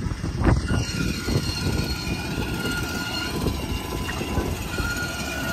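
Turbine whine from a jet airliner parked on the apron: a steady high whine in several tones that comes in about a second in. Wind buffets the microphone underneath.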